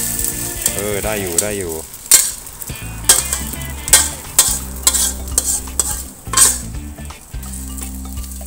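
Omelette sizzling in hot oil in a wok, with a metal spatula scraping and knocking against the wok as it is worked under the egg to flip it: several sharp clanks from about two seconds in.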